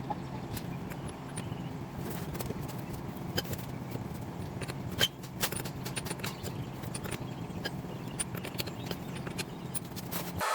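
Light metallic clicks and clinks of hand tools being handled over a steady low hum, with one sharper click about five seconds in.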